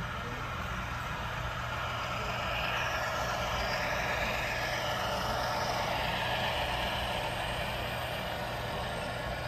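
HO scale model freight train running across a bridge: a steady diesel-engine drone with rolling wheel noise, louder from about two and a half seconds in as the locomotives come closest.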